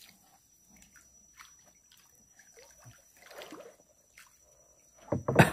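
Light splashing, sloshing and dripping water as a big toman (giant snakehead) is drawn from the water on a set hook line beside the boat, with a somewhat louder splash about three and a half seconds in. A short loud voice-like sound comes just before the end.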